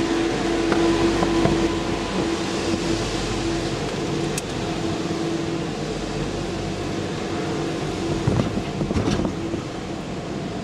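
Steady hum heard from inside a car creeping through the carriages of a Eurotunnel shuttle train: the car's low-speed running mixed with the carriage's ventilation, with one held tone. A light knock comes about four seconds in, and a few more come around eight to nine seconds.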